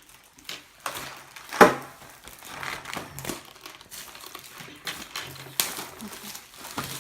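Foil wrapper of a chocolate surprise egg crinkling as it is unwrapped by hand, with irregular crackles and sharp clicks, the loudest about one and a half seconds in.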